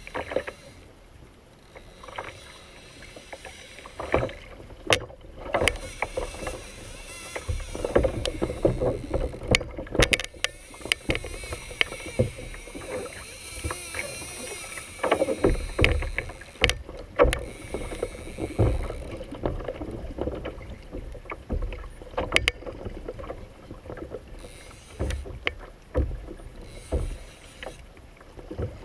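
Water sloshing and slapping against a fishing kayak's hull, with irregular knocks and clicks of gear being handled aboard.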